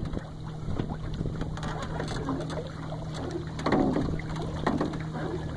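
Wind gusting on the microphone over open lake water, with water lapping and splashing around a small boat, loudest about four seconds in. A faint steady low hum runs underneath.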